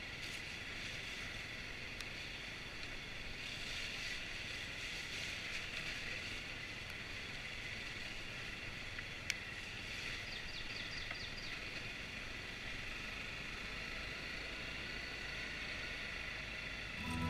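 Honda CRF250L's single-cylinder four-stroke engine running, heard muffled under a steady hiss of wind and trail noise, with two sharp clicks about two seconds and nine seconds in.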